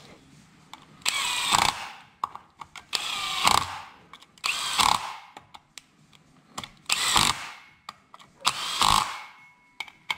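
Bosch cordless drill-driver running the clutch spring bolts on a motorcycle's clutch pressure plate in five short bursts, with light clicks of the socket and bolts between them.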